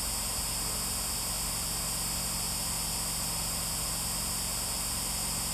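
Steady hiss with a faint low hum beneath it, unchanging throughout; no distinct sound event.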